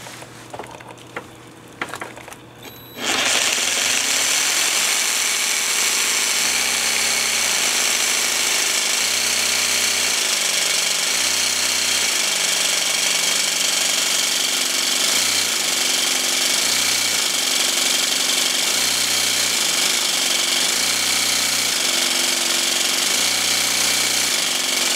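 Cordless jigsaw cutting through tile: it starts about three seconds in and runs with a loud, steady grinding of the blade in the tile, and its motor pitch steps up and down every second or two as the speed changes.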